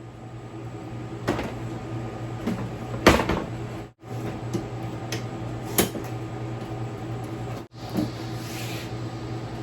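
A few sharp knocks and clunks over a steady low hum. The loudest knock comes about three seconds in and another near six seconds, and the sound cuts out abruptly twice.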